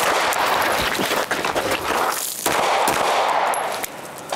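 Airsoft gun firing a string of sharp shots during a timed drill, mixed with a loud rushing noise; it eases off near the end.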